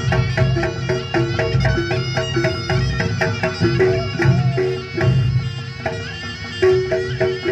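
Traditional-style folk music: a quick melody of many short notes on a reedy wind instrument over a steady drum beat.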